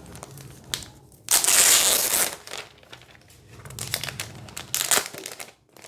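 Packaging around a pen tablet crinkling and rustling as it is handled and pulled off. The loudest rustle lasts about a second, starting just after one second in, and scattered rustles follow.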